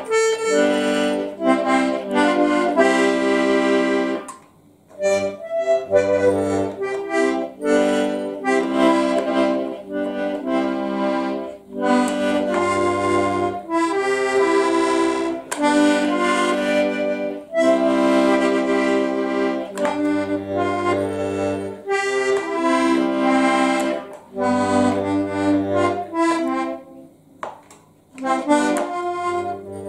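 Small diatonic button accordion played solo: a tune in held chords with occasional low bass notes. It pauses briefly about four seconds in and again near the end.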